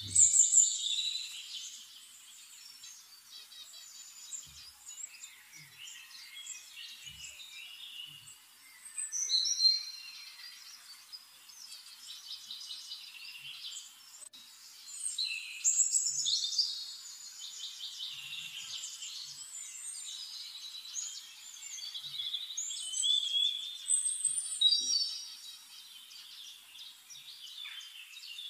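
Several small birds chirping and singing at once, in quick high notes that rise and fall, with louder flurries a few times.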